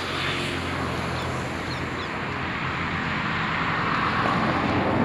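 Steady outdoor traffic noise with a few faint bird chirps in the first couple of seconds.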